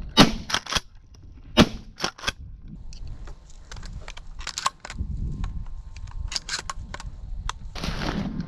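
Two shotgun shots about a second and a half apart, followed by a series of lighter sharp clicks and knocks.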